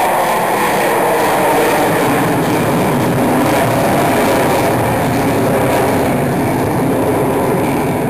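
Steady, loud jet noise from an Avro Vulcan's four Rolls-Royce Olympus turbojets as the bomber flies away overhead, the sound deepening slightly over the first few seconds.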